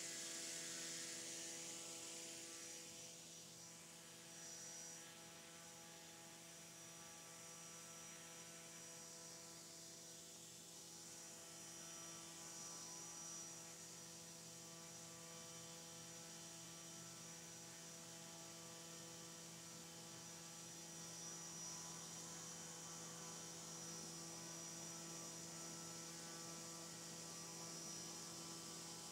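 Drone-scale propeller on a brushless motor test stand running steadily at about 5,000 RPM: a faint, steady hum with a thin high whine above it.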